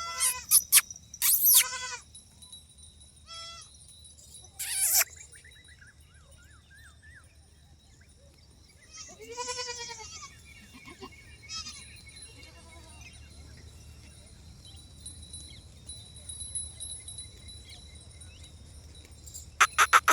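Barbari goats bleating: a string of separate calls, several in the first two seconds, a loud one about five seconds in, another near the middle, and a loud burst at the end, with quieter stretches between.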